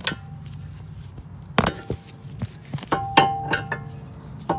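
Metal hand tools and parts being handled: a handful of sharp clanks and clinks, several ringing briefly, with a cluster of them a little past the middle. A steady low hum runs underneath.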